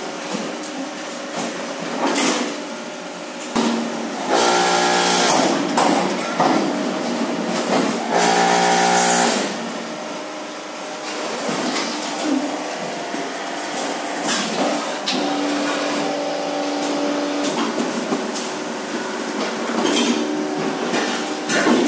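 Automatic twelve-cavity hydraulic fly ash brick machine running through its pressing cycle: a steady hum with scattered knocks and clanks, and two loud spells of a second or so each, about four and eight seconds in.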